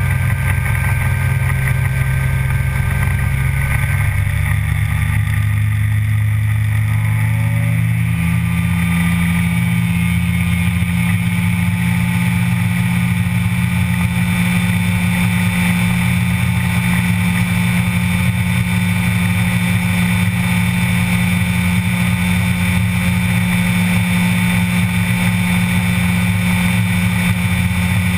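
Two-stroke Rotax pusher engine of an Aventura amphibious ultralight running at takeoff power as it leaves the water. Its pitch rises over a few seconds about five seconds in as the hull comes free of the water, then holds steady through the climb.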